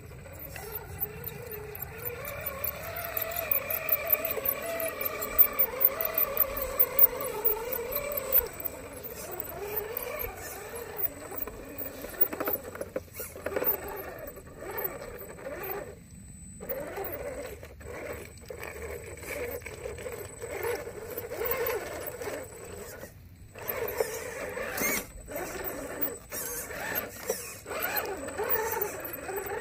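Electric drive motor and gears of a radio-controlled scale crawler truck whining as it crawls through mud, the pitch rising and falling with the throttle, with a few brief stops.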